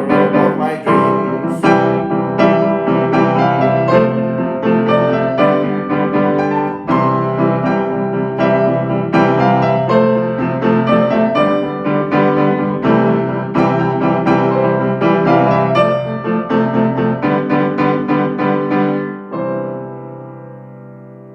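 Piano music: a run of repeated chords and notes, ending about two seconds from the end on a held chord that fades away.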